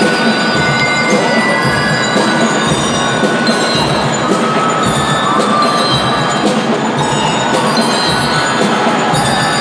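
A marching band playing, with bell-like mallet tones over a steady run of percussion strikes.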